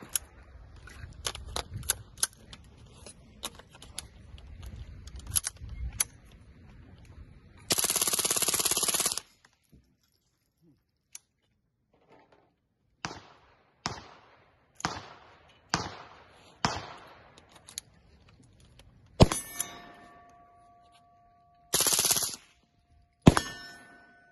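Suppressed .22 LR rifle with a 3D-printed suppressor firing. A run of uneven shots comes first, then a burst of rapid automatic fire lasting about a second and a half, then single shots about a second apart and another short burst. Two of the later shots are followed by a lingering metallic ringing.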